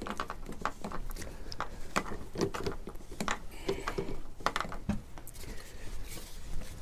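Flexible pouring spout being fitted and screwed onto a plastic jerry can: an irregular run of small plastic clicks, scrapes and knocks.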